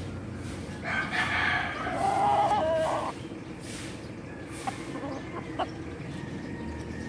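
A rooster crowing once, starting about a second in and lasting about two seconds, ending on a held note that lifts at the very end.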